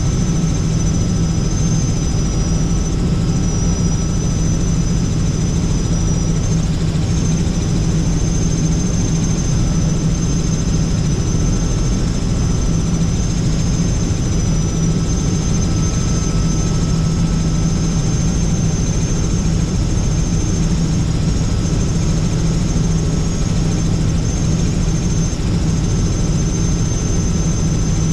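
Helicopter in steady cruising flight, heard from inside the cabin: a loud, even drone of rotor and engine with a thin high whine running over it.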